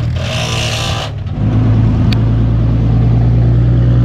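Demolition derby car engine running at a steady speed, a loud low even drone that comes in about a second and a half in, after a brief hissing rush in the first second.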